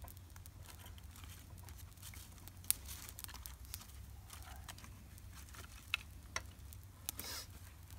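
Small fire of dried grass and twigs crackling, with scattered sharper snaps, some of them louder near the end. Some of the twigs are a little damp.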